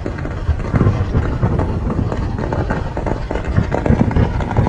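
Distant fireworks display: a dense, continuous run of low booms and crackling bangs.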